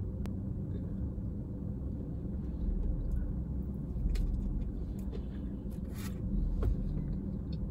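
Steady low rumble inside a car, with faint chewing and a few soft clicks as a cheeseburger and fries are eaten from a takeout box.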